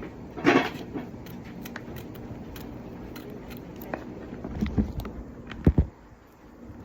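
Kitchen handling sounds: scattered knocks and clatters of pots, utensils and cupboard doors, with a louder clatter about half a second in and two sharp knocks near the end, over a steady low background rumble.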